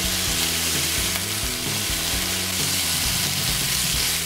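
Diced bacon and onion sizzling steadily in a hot frying pan as a silicone spatula stirs them and scoops them out of the pan.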